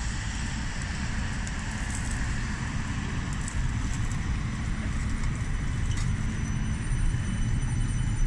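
CAF electric tram passing close by: a steady low rumble of the tram running, with no clear peaks or breaks.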